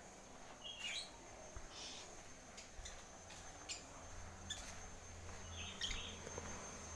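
Quiet outdoor background with a few faint, short bird chirps scattered through it over a faint steady high tone.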